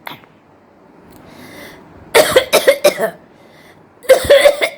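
A woman's performed, deliberate coughing: a quick run of about five or six coughs starting about two seconds in, then another run of coughs near the end, with a breath drawn in before them.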